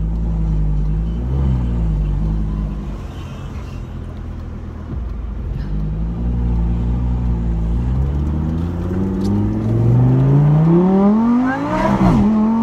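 Lamborghini Superleggera's V10 engine heard from inside the cabin. It runs at moderate, wavering revs at first, then revs up steadily under hard acceleration from about eight seconds in, with a sharp drop in pitch near the end as it shifts gear.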